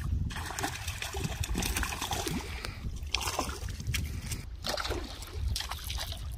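Water splashing and sloshing as a hooked rohu thrashes at the surface while being played on a fishing pole, over a low rumble. The sound drops out briefly a few times.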